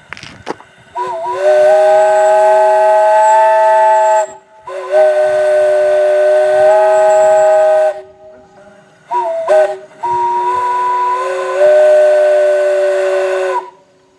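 Multi-chime train air horn sounding a chord of several notes: two long blasts, two quick short toots, then a final long blast.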